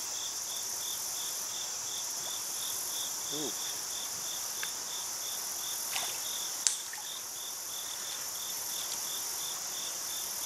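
Insects calling steadily, a high even chorus with one chirp repeating about three times a second. A single short click comes about two-thirds of the way through.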